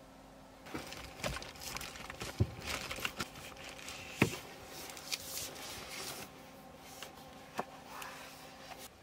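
Bedding and fabric rustling and crinkling as someone moves about under the covers in a small space, with several sharp knocks among the rustles, the loudest about four seconds in.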